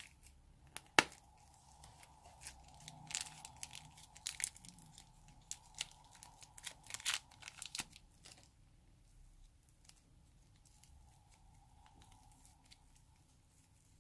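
Rubber balloon filled with soft clay being torn open and peeled, a run of crinkly tearing crackles and clicks with one sharp snap about a second in. It turns much quieter after about eight seconds, while the soft clay is handled.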